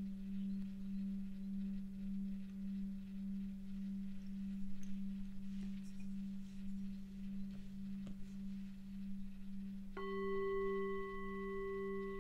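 Tibetan singing bowls: a larger bowl's low, slightly wavering hum rings on throughout. About ten seconds in, a small hand-held bowl is struck with a mallet and rings out clear and bright over it.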